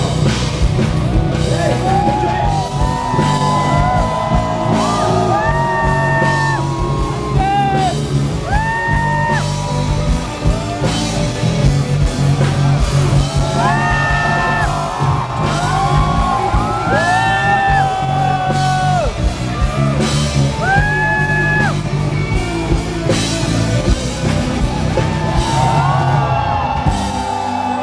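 A rock band playing live and loud, with a high lead line of held notes that slide and bend over the bass and drums.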